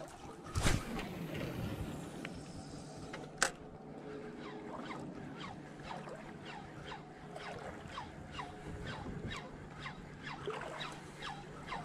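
A fishing rod cast and a spinning reel retrieved: a swish with a falling whir as line pays out, a sharp click about three seconds in, then the reel cranked steadily with a short squeak on each turn, about two a second.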